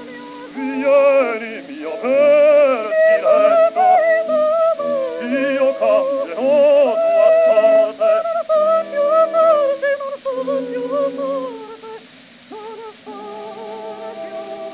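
Early acoustic gramophone recording of a soprano and baritone singing a duet in a smooth legato line with a wide, wavering vibrato, over steady held instrumental accompaniment. The sound is thin and narrow in range, typical of a record from before the microphone era.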